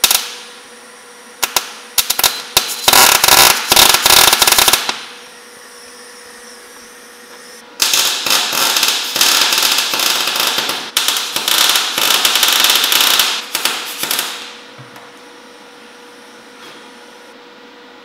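Electric welding arc crackling and spitting in two runs of a few seconds each, the first starting about a second and a half in and the second, longer one starting about eight seconds in, as a steel bracket is welded into a car's engine bay. The welder is not really dialed in.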